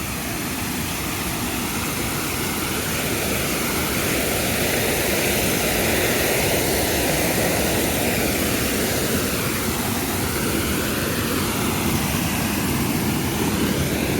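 Steady, loud rush of falling water, growing a little louder about four seconds in.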